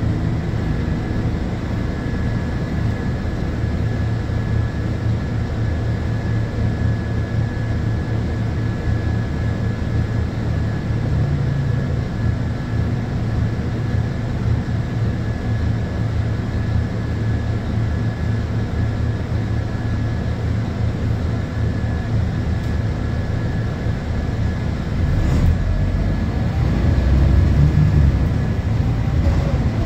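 Scania K230UB bus heard from inside the cabin: its engine runs steadily, with a thin constant high whine over the rumble. About 25 seconds in, the engine grows louder and heavier and a faint rising whine comes in, as the bus pulls away.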